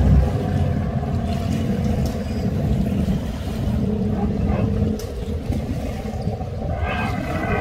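Outboard motor of a small race boat running at speed across open water: a steady engine drone over a low rumble.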